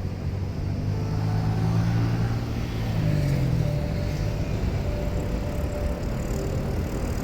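A vehicle's engine humming over a low rumble, its pitch dropping about three and a half seconds in as it passes.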